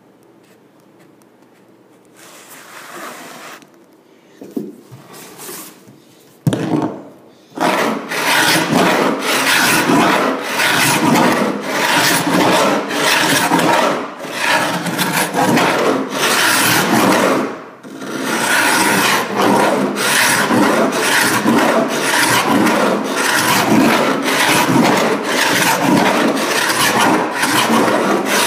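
Carbide-blade paint scraper drawn by hand across an old oak floor in quick repeated rasping strokes, taking off a rough old finish. A few scattered strokes come first, and about six seconds in it settles into steady, continuous scraping.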